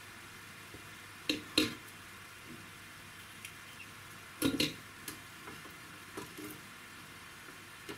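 Hands working over a bare-rooted orchid's roots, making a few sharp clicks and crackles: two close together about a second and a half in, a louder cluster a little past the middle, and smaller ones after.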